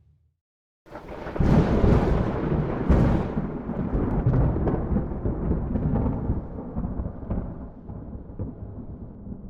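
A long, deep rumble that starts suddenly about a second in, with sharp crackles near its loud start, then slowly fades away.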